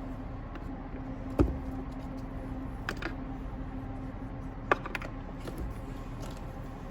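A few sharp, scattered clicks and knocks of plastic blower-motor housing parts being handled and fitted together during reassembly, over a steady low hum.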